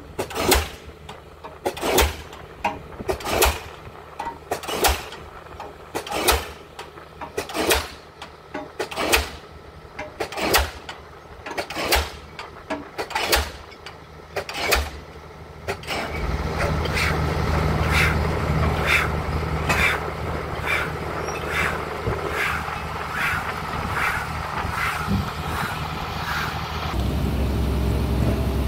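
A diesel pile hammer driving a pile with sharp, evenly spaced blows about once every second and a half. About 16 seconds in the blows stop, and the crawler crane's diesel engine runs louder and steady, with faint regular ticking.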